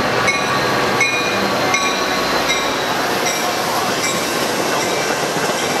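Metra commuter train's stainless bilevel gallery coaches rolling past, a steady rush of steel wheels on rail. Short high metallic wheel squeals ring out over it a little more than once a second.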